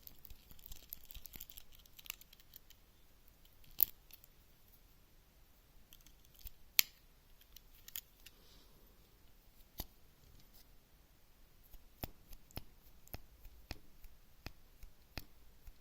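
Tools of a Victorinox Swiss Army knife being worked open and shut, giving sharp metallic clicks as the blades snap home on their springs. The tools are being worked to spread freshly applied oil through the pivots.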